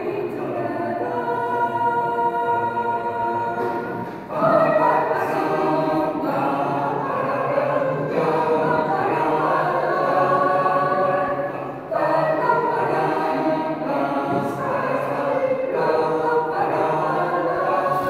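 Mixed choir of men's and women's voices singing in parts, holding sustained chords in phrases, with short breaks about four seconds in and about twelve seconds in; the phrase after the first break comes in louder.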